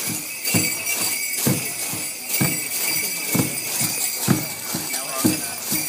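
Deep dance drum beating a steady rhythm of about one stroke a second, over continuous jingling of bells.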